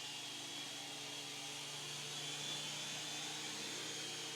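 Small remote-control toy helicopter in flight, its electric motor and rotor whirring steadily.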